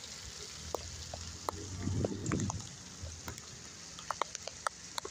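Rain falling, with scattered sharp drops tapping close by over a low steady rumble. A louder rumbling swell rises and fades about two seconds in.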